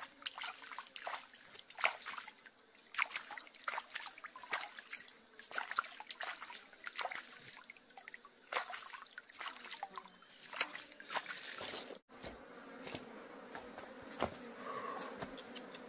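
Hands splashing and sloshing shallow stream water while rinsing something, in short irregular splashes that stop about twelve seconds in.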